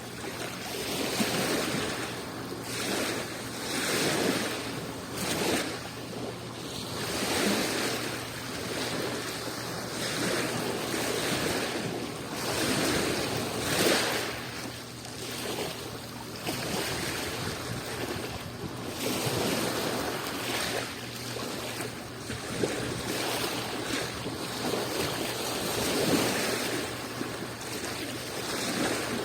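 Adriatic Sea waves washing onto the shore, one surge after another every couple of seconds.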